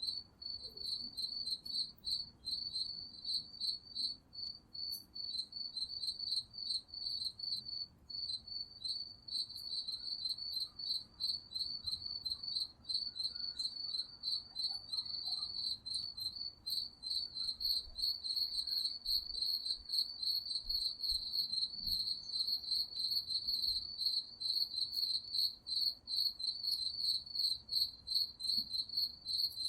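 Crickets chirping in a steady, unbroken run of rapid, high-pitched pulsed chirps.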